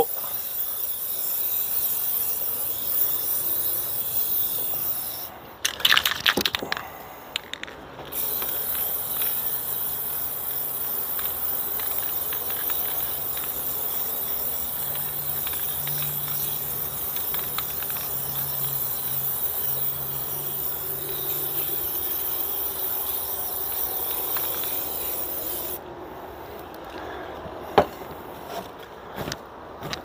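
Aerosol spray paint can hissing in long steady sprays as black paint goes on. There is a short break about five seconds in, with a few clicks, and the spray stops a few seconds before the end.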